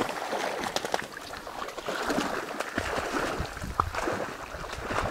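Soft splashing and rustling of water and reeds in a shallow marsh, with scattered small clicks and a low rumble coming in about three seconds in.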